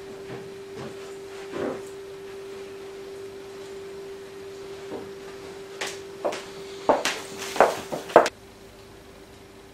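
Footsteps and a wooden interior door being handled, a cluster of knocks and thuds in the second half with the loudest near the end, over a steady faint hum.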